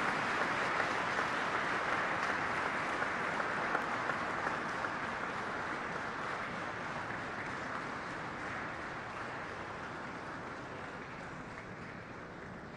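Audience applauding, many hands clapping at once. Strongest in the first few seconds, then slowly dying away.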